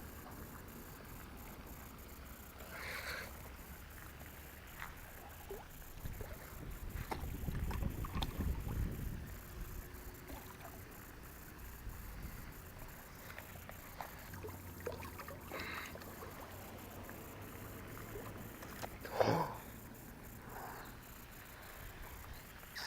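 Faint water splashing with low gusts of wind on the microphone, swelling about a third of the way in, and a short louder splash near the end.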